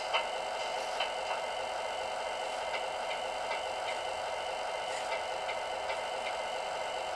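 Truck engine idling sound effect played from the small speaker of a model tractor-truck cab's sound module: a steady thin-sounding rumble with no deep bass, with a few light clicks scattered through it.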